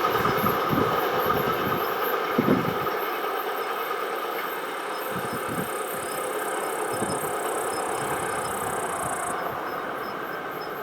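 Train passing over the level crossing and moving away, its rolling noise with a few low thuds in the first seconds, then fading steadily.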